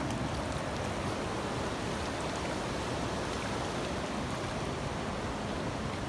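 Steady rushing of a fast-flowing river.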